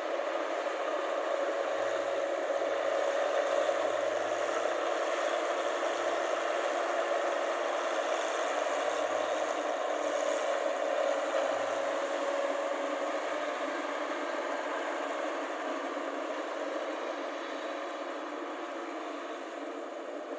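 Rice combine harvester running steadily: engine and machinery noise with a constant whine, growing gradually quieter over the last few seconds.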